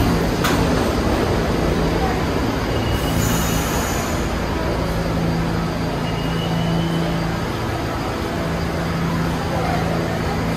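New York City subway train running along the station platform: a steady rumble with a low motor hum, and a couple of brief faint high squeals.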